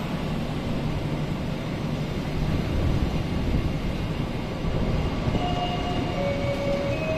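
Passenger train coaches rolling along the rails past a station platform: a steady rumble of wheels on track. From about five seconds in, a short tune of held notes at different pitches sounds over it, like a station chime.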